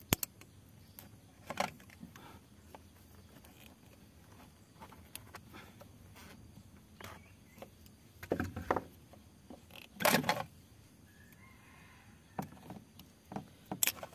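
Scattered clicks and knocks of hand-handled parts and tools: pliers working a hose clamp on an electric fuel pump, then the pump's plastic bracket and wiring connector being handled. The loudest clatter comes about ten seconds in.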